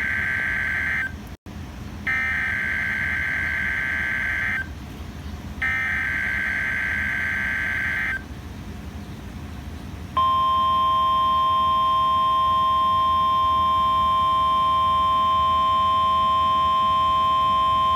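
NOAA Weather Radio Emergency Alert System signal: bursts of SAME digital header data, each about two and a half seconds long with about a second between them, over radio hiss. About ten seconds in, the steady single-pitch 1050 Hz weather-radio warning alarm tone starts and holds. Together they are the alert signals that open a Tornado Watch broadcast.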